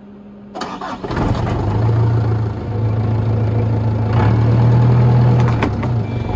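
Light flatbed truck's engine starting about a second in, then running steadily at idle.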